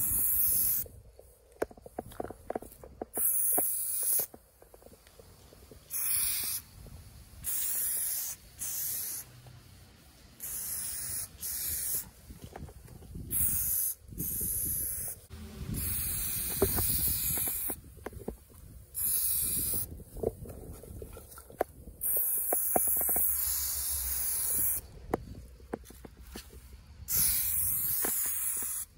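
Aerosol spray paint can spraying in repeated bursts, mostly short sprays of about a second and a few longer ones of two seconds or more, with light knocks in the pauses between them.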